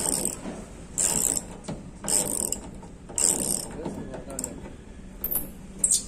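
Hand-tool work in repeated rasping strokes, about one a second, each stroke a short scraping hiss.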